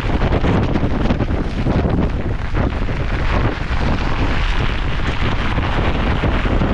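Storm wind buffeting the microphone: a loud, continuous rush of noise with no let-up.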